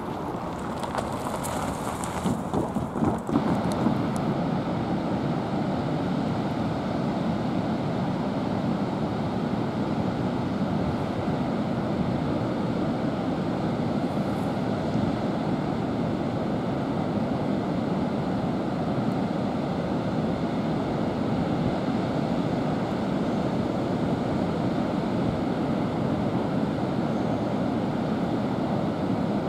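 Train cars rolling past, a steady rumble of wheels on rail, with a few sharp clicks about two to three seconds in.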